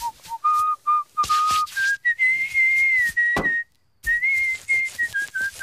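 A man whistling a tune, one clear note after another with small slides between them, over short scrubbing and lathering noises. A dull thud sounds about three and a half seconds in, and the whistling breaks off briefly just before four seconds.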